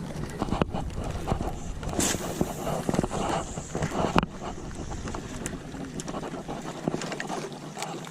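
Wind buffeting the microphone on a small boat at sea, with water noise, scattered clicks and knocks, and a brief hiss about two seconds in.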